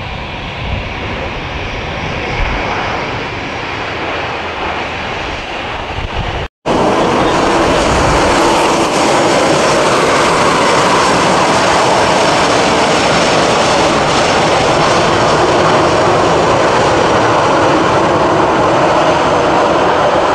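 Airliner jet engines: first the more distant rumble of a jet on the runway, then, after an abrupt cut about six and a half seconds in, the louder steady running of a nearby easyJet Airbus A319's twin jet engines as it taxis past and turns away, with a faint high whine over the noise.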